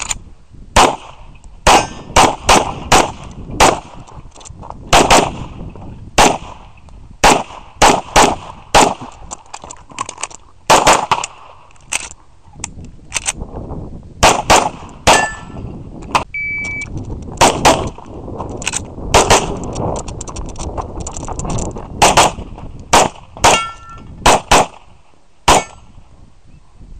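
Grand Power X-Calibur pistol firing in rapid strings of two or three shots, with short pauses between strings. A few shots are followed by a brief metallic ring from hit steel targets.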